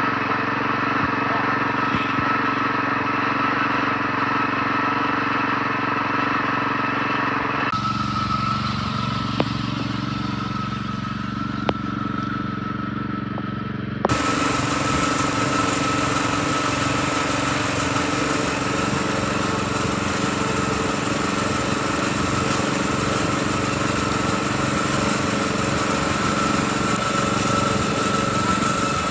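Wheel Horse garden tractor's small engine running steadily as the tractor drives over grass. The sound changes abruptly twice, about eight and fourteen seconds in.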